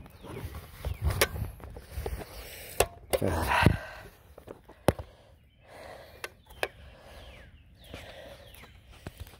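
Handling noise from a phone being moved about: rubbing and scraping on the microphone with several sharp clicks and knocks, loudest in the first four seconds.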